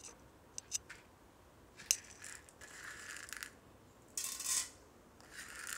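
Faint clinks and scrapes of a metal spoon, then a short rattle as a spoonful of dry split urad dal is tipped into an aluminium kadai.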